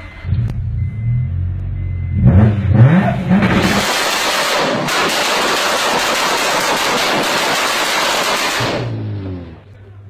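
Honda Integra VTEC engine running, blipped up and down a few times, then held on launch control for about five seconds: a loud, harsh, continuous crackle loud enough to be mistaken for gunfire. The revs then fall back to idle near the end.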